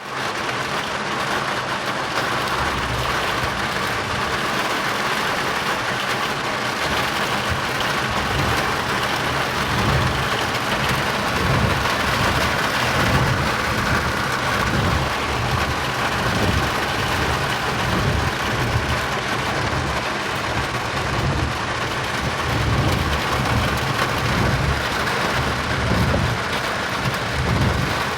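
Heavy rain falling steadily, with irregular low rumbles that come and go.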